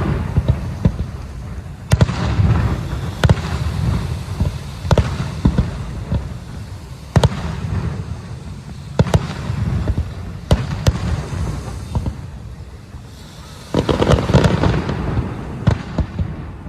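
Aerial fireworks bursting: a rapid run of sharp cracks and booms over a low rumble, with a thick cluster of bursts near the end.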